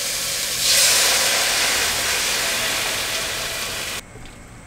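Water poured into a hot pot of frying seafood, hissing and sizzling as it hits. The hiss swells about a second in and cuts off suddenly near the end.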